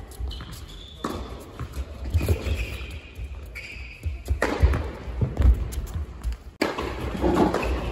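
Tennis balls being struck with rackets and bouncing on an indoor court: a string of separate sharp thuds.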